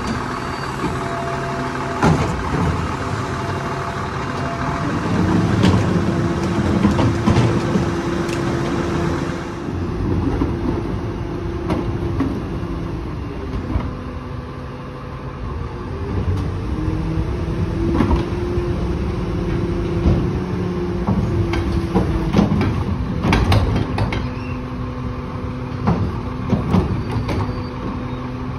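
Lodal EVO split-body garbage truck idling, then revving up twice as its hydraulic cart tippers lift and dump toters into the hopper, the pitch rising, holding and falling back each time. Sharp clanks as the carts knock against the tipper and hopper and are set back down.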